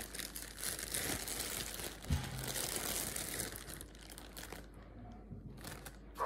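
Plastic bread bag crinkling and rustling as it is opened and handled, with a single dull knock about two seconds in. The crinkling dies down after about four and a half seconds, and a few short rustles come near the end.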